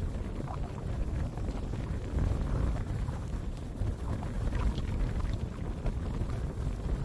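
Snowstorm wind blowing hard: a dense low rumble of gusts buffeting the microphone, with faint brief higher streaks scattered through it.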